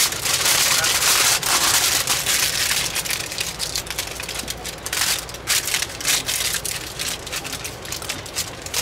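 Aluminum foil being scrunched and folded by hand around food, crinkling and rustling. It is dense and steady for the first few seconds, then breaks into sparser sharp crackles.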